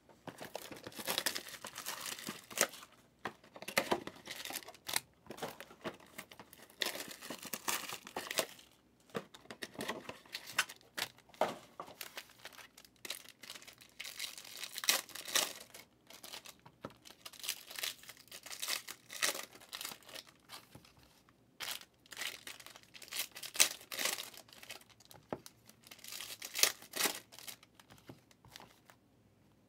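Foil wrappers of Bowman Chrome trading-card packs being torn open and crinkled by hand, in irregular bursts of crackling with short pauses between.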